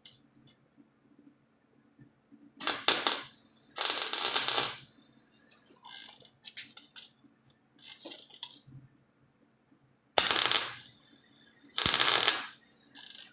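Welder laying short stitch welds on sheet-metal body panel: four brief bursts of arc crackle, in two pairs several seconds apart.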